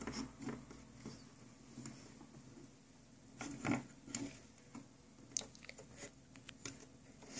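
Faint, scattered small clicks and rubbing of a metal crochet hook working rubber loom bands over a plastic loom's pegs, loudest about three and a half seconds in.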